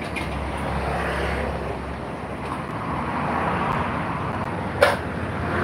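Outdoor street ambience, a steady traffic-like noise with a low rumble in the first couple of seconds. A single sharp clack comes near the end.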